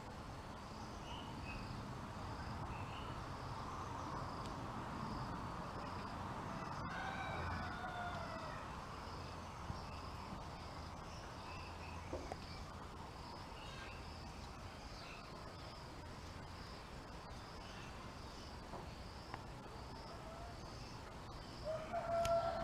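An insect chirping in a steady train of evenly repeated high pulses, with a rooster crowing faintly about a third of the way through and again, louder, at the very end.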